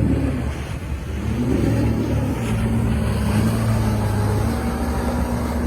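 A boat's engine running steadily at a constant pitch.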